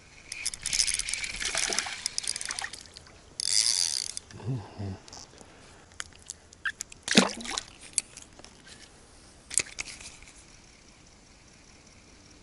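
Ultralight spinning reel being cranked and handled: a burst of quick ratcheting clicks and whirring, then a few separate sharp clicks and knocks, the loudest about seven seconds in.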